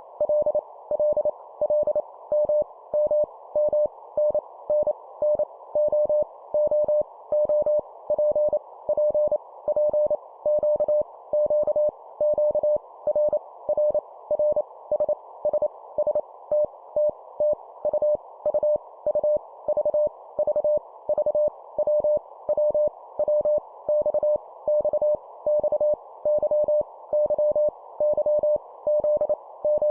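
Morse code (CW) sent at 25 words per minute as a single steady mid-pitched tone keyed in short and long elements, each letter repeated three times, over a faint steady hiss.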